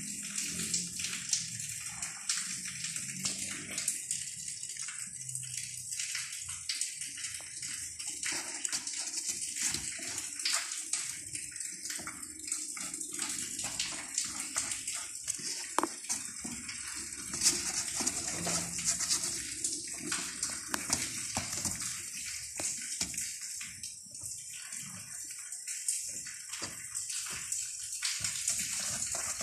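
Kittens' claws scratching and rustling on a cardboard box in many short, irregular scratches, over a steady hiss that sounds like running water.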